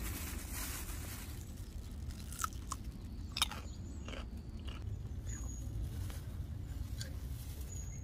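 Crisp crunching of a raw cucumber being bitten and chewed, with several sharp crunches in a cluster around the middle and a few softer ones after, over a steady low rumble.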